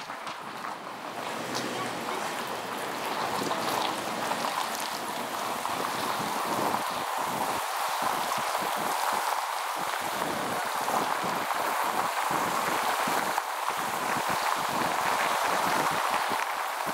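Steady road and wind noise of a moving car, picked up by a camera mounted on the outside of the car. It grows louder over the first few seconds as the car picks up speed, then holds steady.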